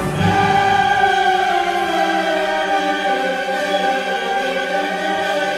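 Background music: a choir singing long, sustained notes that slowly shift in pitch.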